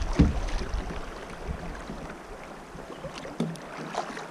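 River current rushing and lapping around a drifting kayak, with wind gusting on the microphone through about the first second and a half, after which a quieter, steady rush of water remains.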